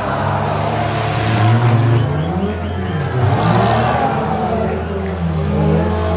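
Engines of several demolition-derby cars revving and running on a dirt track, their pitch rising and falling as they accelerate and slow, with two short bursts of hiss about one and three and a half seconds in.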